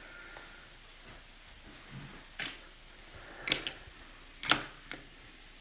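A handful of short rustles and clicks from trading cards and their packs being handled, about five in all, starting about two seconds in.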